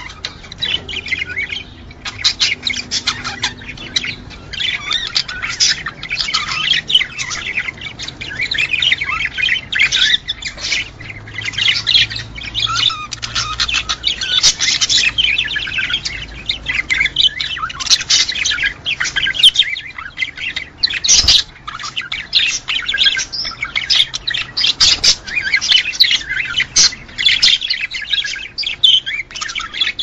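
A flock of budgerigars chattering and warbling without a break, thick with quick chirps and squawks. One dull knock comes about two-thirds of the way through.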